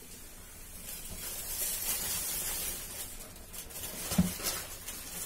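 Soft hissing from a steel pot of water and whole spices heating on a gas stove; it swells about a second in and then fades. A single low thump comes about four seconds in.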